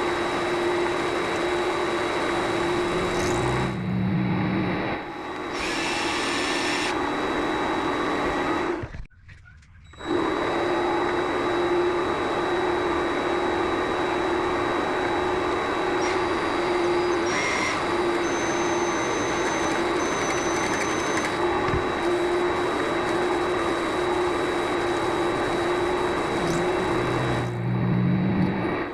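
Vevor MX400 mini lathe running steadily, its motor giving a constant hum and thin high whine over a noisy wash. The sound drops out for about a second roughly a third of the way in, then carries on unchanged.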